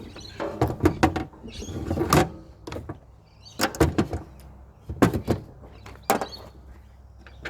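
Parts of an electric chainsaw being handled and set down during disassembly: a scattered series of sharp clicks and knocks, some in quick pairs, with light rustling between them.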